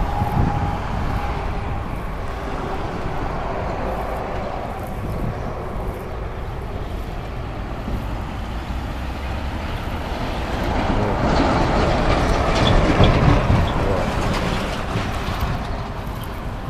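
Steady outdoor rumble of road traffic that swells louder for a few seconds from about ten seconds in as a vehicle passes, then fades again.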